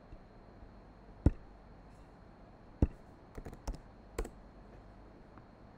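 Computer keyboard keys tapped a handful of times at an uneven pace, sharp single clicks with a quick little run in the middle, as a short search is typed into a web browser.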